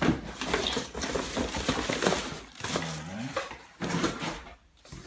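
Unpacking noise: a plastic bag crinkling around a servo drive, and cardboard and foam packing being shifted in a box, with small knocks and clatter.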